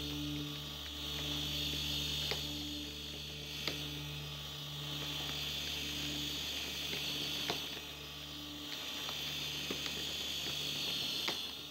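A model-layout magnet chain drive running: a steady electric hum and high whine from its motor, with a sharp light click every second or so as the chain carries the model cars along.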